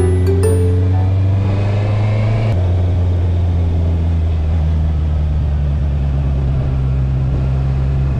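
Motorcycle engine running under way, a steady engine note that climbs, steps down about two and a half seconds in, then holds steady.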